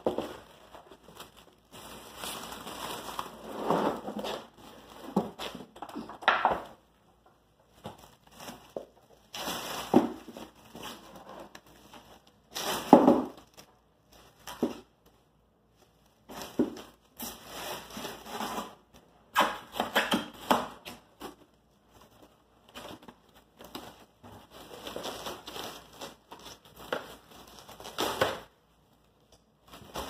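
Clear plastic stretch wrap crackling and crinkling as it is pulled off a hand-held roll and wound around a large wooden birdhouse, in irregular bursts with short pauses between pulls.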